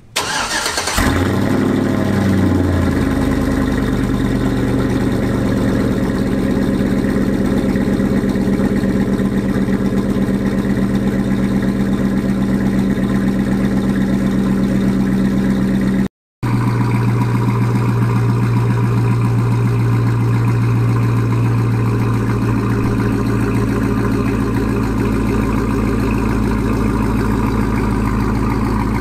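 Chevrolet Silverado pickup's engine, heard at its exhaust, starting with a brief rev that falls and settles into a steady idle. It idles on after a short break about halfway through.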